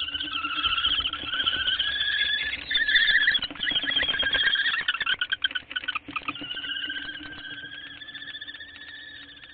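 Common kestrels calling: a long, wavering whining call that breaks into a rapid, excited chatter mixed with wing flutters from about three to six seconds in, then settles back to the drawn-out whine. These are the calls of a pair handing over prey.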